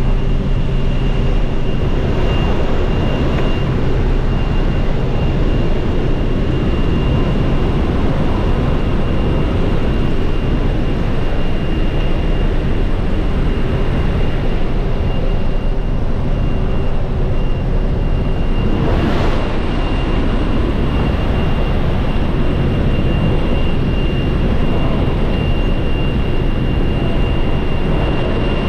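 Jump plane's cabin in flight: steady engine and propeller drone mixed with rushing airflow, with a thin steady high whine over it. A brief louder rush of air comes about two-thirds of the way through.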